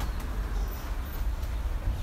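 Wash mitt rubbing soapy foam over a car's bonnet, over a steady low rumble.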